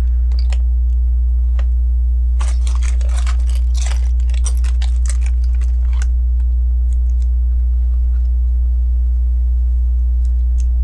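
Small plastic Lego bricks clicking and rattling as they are handled and picked through: a dense run of clicks in the first half, then a few scattered ticks. A steady low hum runs underneath throughout.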